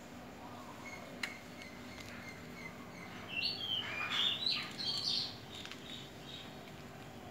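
A bird chirping in a quick run of short, high calls for about two seconds in the middle, over a steady faint background hum. A single sharp click about a second in.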